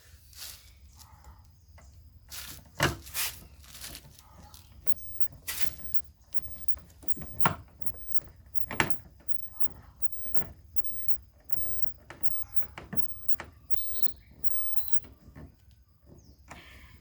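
Scattered sharp clicks and knocks from hand work on a car's plastic bumper trim: screws being driven and parts being handled. The knocks are loudest near the start and around the middle, over a low steady hum.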